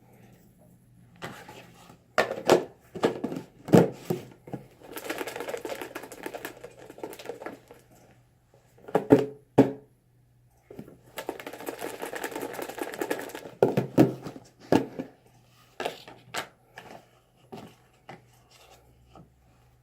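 Paper slips being handled for a name draw: scattered knocks and crinkling, with two longer stretches of rustling about five and eleven seconds in.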